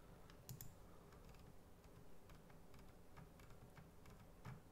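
Near silence with faint, scattered clicks of a computer mouse, a few slightly stronger ones about half a second in and near the end.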